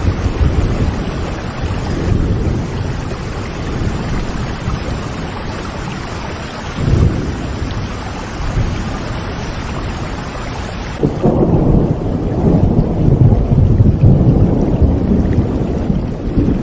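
Steady rain with rolling thunder rumbling underneath. About two-thirds of the way in, the hiss of the rain suddenly thins and deeper, louder thunder rumbling takes over.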